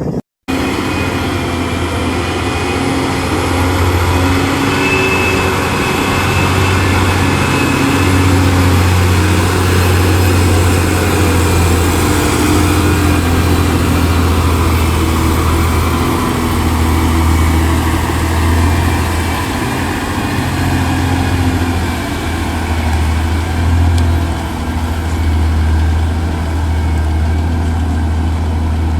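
Heavily loaded truck's diesel engine running steadily under load: a deep, continuous drone that swells and eases slightly. It follows a brief cut-out right at the start.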